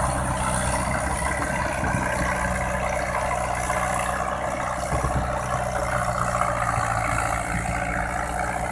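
Diesel engine of a New Holland tractor on crawler tracks, running steadily under load as it works through deep paddy mud, with a constant mechanical wash over the engine hum.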